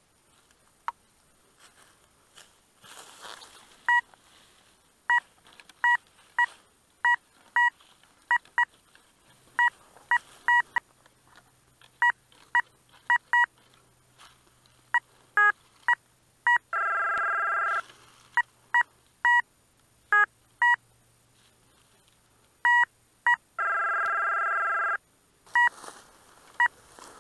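Metal detector beeping over a dug hole: many short, clipped beeps at one pitch, irregularly spaced, and twice a steady tone lasting about a second, the detector signalling metal in the hole. Leaves and soil rustle now and then.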